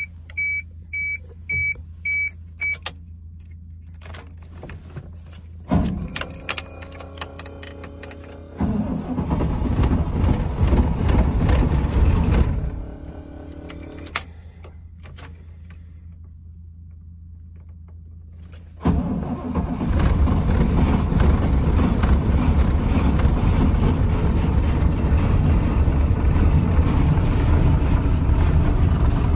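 A dash chime beeps five times. Then a 1998 GMC C7500's Caterpillar 3116 inline-six diesel is cranked from cold at 17°F with no block heater, after its intake heater has cycled. It cranks for several seconds and stops, and about 19 seconds in it is cranked again, catches, and keeps running steadily.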